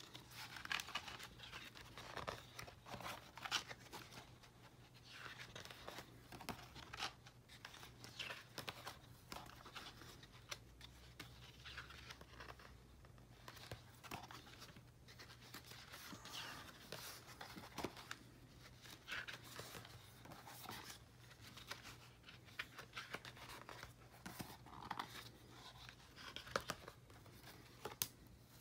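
Pages of a large hardcover scrapbook being turned and smoothed flat by hand: quiet, scattered paper rustles, swishes and light taps, over a faint steady low hum.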